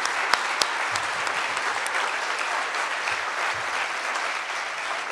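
Audience applauding steadily, the clapping easing off slightly near the end.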